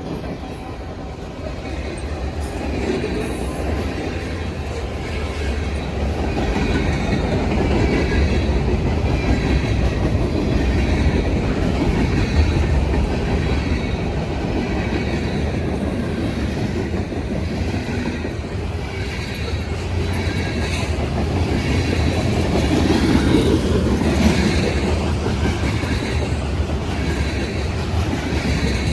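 Freight train rolling past close by: a steady rumble of wheels on rail that grows louder a few seconds in, with faint high wheel squeal over it.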